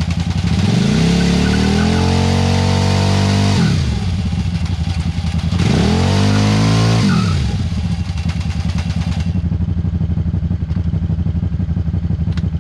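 Suzuki SV650 V-twin engine of a mini rock crawler revving up twice under load, each rev held for a couple of seconds and then dropping back, then idling steadily.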